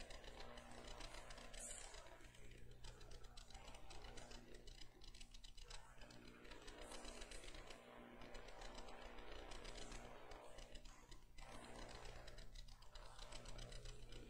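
Near silence: room tone with a steady low hum and faint scattered clicks.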